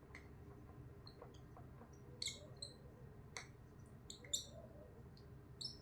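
Faint, short, high squeaks of a marker pen writing on a whiteboard, coming irregularly with the strokes, with a couple of sharp taps.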